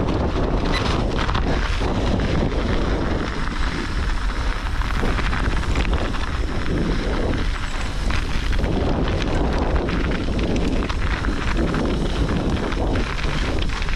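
Wind rumbling on the microphone of a handlebar- or body-mounted camera, mixed with the tyre noise of a knobby-tyred mountain bike rolling over packed snow and then asphalt, surging every second or so.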